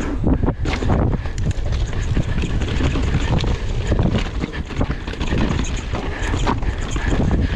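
Mountain bike descending a rough trail at speed: wind buffeting the microphone, with the bike clattering and rattling over rocks and roots in quick, irregular knocks.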